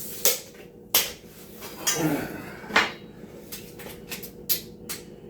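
Sharp knocks and clicks from working with hand tools and framing lumber: three loud knocks, the first just after the start, one about a second in and one near the three-second mark, with a brief scrape about two seconds in, then lighter ticks near the end.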